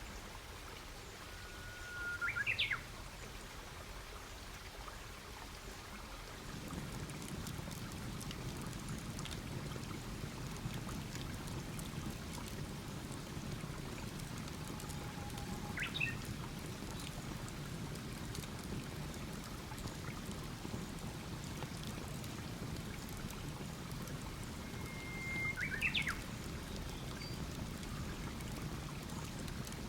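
Campfire burning with a steady hiss and faint scattered crackles and pops; the low rushing of the flames grows a little louder about six seconds in. A songbird calls three times, each a held whistle ending in a quick higher flourish.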